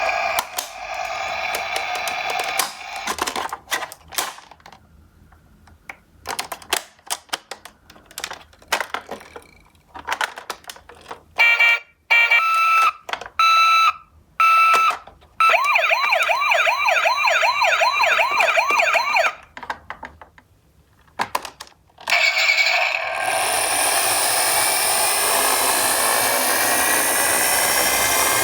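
Toy ambulance sirens: a two-tone siren sounds a few times, then a fast warbling siren at about four warbles a second, set among sharp plastic clicks and clatter. Near the start and from about three-quarters of the way through, a steady loud rushing rattle of die-cast minicars rolling down a steep slope.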